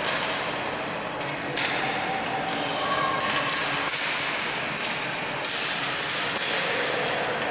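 Sound of a boot hockey game on an ice rink: hockey sticks tapping and scraping on the ice in several sudden bursts, with players calling out now and then.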